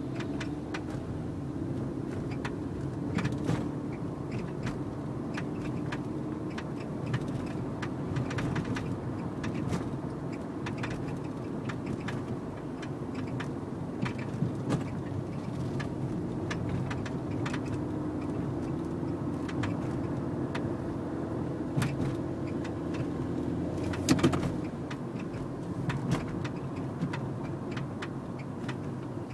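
Nissan Note running with a steady engine and road hum, while the suspension gives off repeated short clunks and knocks at irregular intervals, the loudest about 24 seconds in: a suspension fault.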